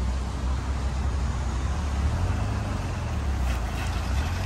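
Rover Streetwise's petrol engine running steadily as the car is driven slowly, a low steady hum with a slight shift in pitch about halfway through.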